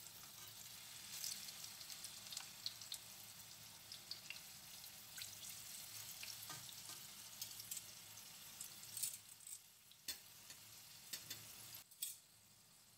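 Kabocha pumpkin slices sizzling and crackling in shallow oil in a pan while metal tongs turn them, with a few sharp clicks in the second half. The sizzle drops quieter near the end.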